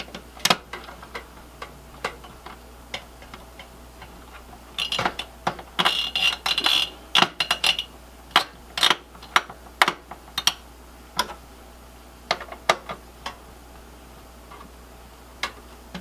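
Screwdriver tightening the spring-loaded heatsink screws over the CPU of a Dell T320 server: irregular small metallic clicks and ticks, busiest from about five to eight seconds in, with a brief squeak around six seconds in.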